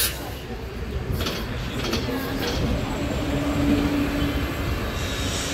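A bus running with a low rumble, with a steady droning note for about two seconds in the middle.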